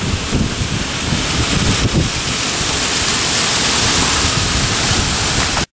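Wind buffeting the microphone in gusts over a steady hiss of heavy rain and wet road from a moving car; cuts off suddenly at the end.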